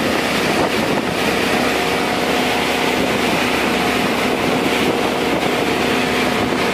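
Fishing boat's engine and deck machinery running steadily, with water and a mass of small fish rushing and splashing in the hold.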